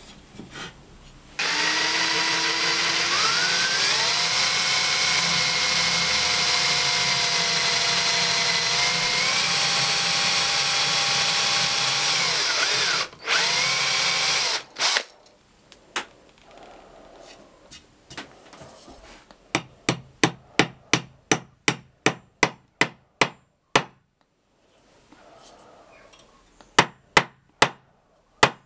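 Makita cordless drill boring holes into walnut: a steady motor whine that climbs in pitch as it speeds up, runs for about twelve seconds and then makes a second short run. After a pause come a quick series of sharp taps, about three a second, and a few more near the end, as brass pins are tapped into the drilled holes.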